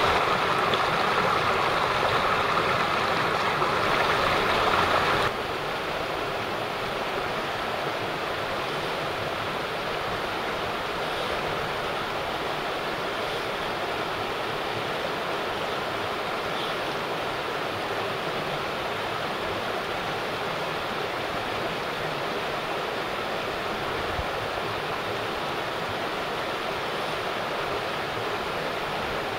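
Mountain stream flowing, a steady wash of rushing water. About five seconds in it drops abruptly to a quieter rush that then holds steady.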